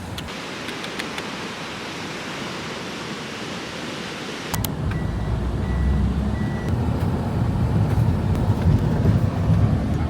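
A steady hiss, then, after an abrupt change about four and a half seconds in, a louder low rumble like wind or a motor, carrying a faint intermittent high tone.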